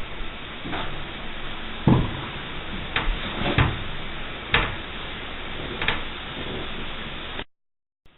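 A series of about six irregular knocks and bumps over a steady hiss, ending in an abrupt cut to silence near the end.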